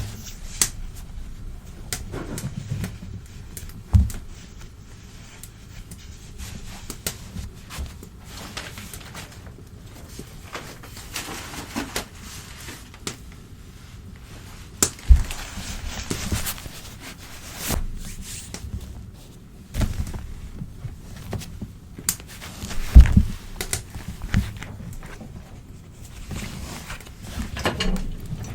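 Old newspaper being handled and torn close to the microphone: irregular spells of crinkling and ripping rustle, with scattered clicks and a few sharp knocks.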